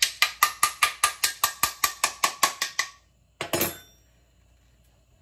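The end of a kitchen knife tapping rapidly on the stuck metal lid of a glass pasta-sauce jar, about six sharp taps a second, a trick for loosening the lid so it will open. The tapping stops about three seconds in, followed by one short, louder noise.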